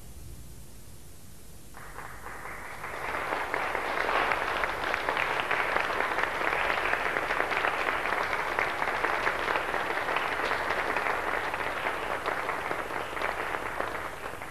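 Audience applauding in a concert hall. The clapping starts about two seconds in, swells within a second into steady dense applause, and tapers off near the end.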